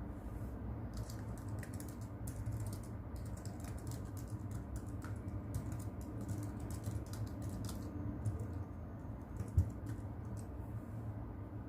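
Typing on a keyboard: quick, irregular keystroke clicks in runs with short pauses, over a steady low rumble of brown noise. One dull low thump about nine and a half seconds in.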